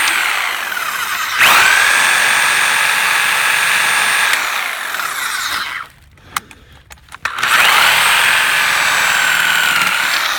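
Reciprocating saw (Sawzall) cutting through the wooden dowel pins of a rocking chair, its motor whining in three runs. It winds down just after the start, runs again for about four seconds, stops with a few clicks, then runs again until near the end.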